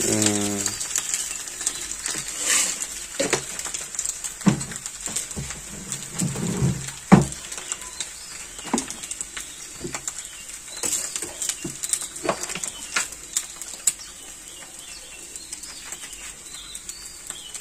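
Scattered clicks and knocks of a steel spoon against a pan and containers while cooking, over a steady high hiss. A low cooing call sounds at the start, and again softly around the middle.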